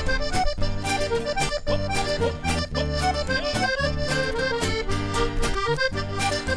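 Accordion playing an instrumental break in a traditional Uruguayan song, over a steady beat.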